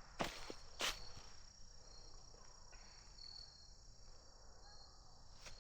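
Crickets trilling steadily and faintly in the autumn woods. Two soft footsteps land near the start.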